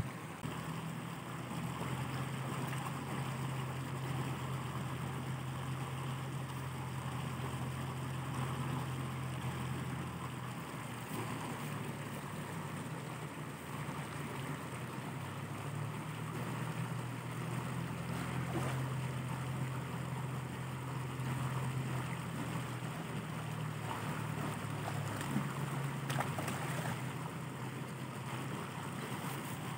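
Steady low outdoor rumble with a faint hiss, shifting in level every several seconds; no clear single event stands out.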